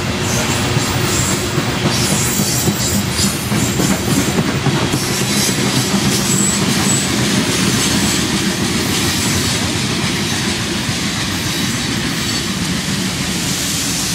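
Freight train rolling along the track close by: steady wheel and car rumble with clatter and a few brief high wheel squeals in the first half.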